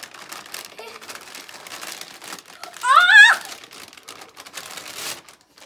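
Brown paper bag crinkling and rustling as a hand rummages inside it. About three seconds in, a child gives a short high-pitched squeal, the loudest sound.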